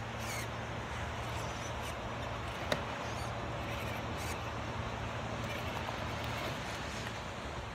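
Traxxas TRX-4 Defender RC crawler's electric motor and drivetrain running steadily as it creeps over rock. Steady wind and surf noise lies under it, and one sharp click comes about a third of the way in.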